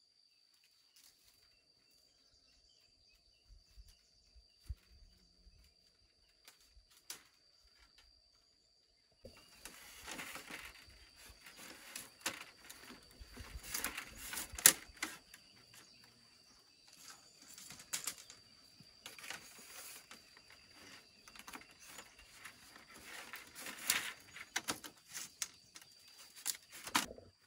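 Split bamboo slats rustling and clattering against one another as they are laid and woven into a bamboo fence panel, with many sharp clicks and knocks. After a few faint knocks, the handling starts about a third of the way in and runs almost to the end.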